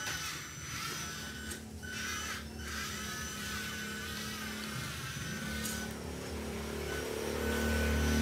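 Small battery-powered RC truck driving on a concrete floor: a high whine from its electric drive motor and metal differential gearing, cutting in and out as the truck starts, slows and turns, over a low running hum that grows louder near the end.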